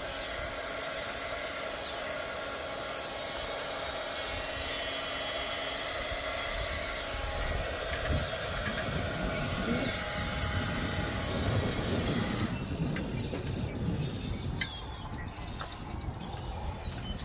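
Handheld craft heat gun blowing hot air, a steady hiss with a motor whine, switched off suddenly about twelve seconds in. Wind rumbles on the microphone through the second half, with a few handling knocks near the end.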